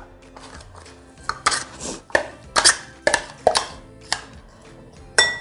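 A spoon knocking and scraping inside a food-chopper bowl as ground lentil falafel mixture is emptied out: a quick string of sharp knocks from about a second in until about four seconds in.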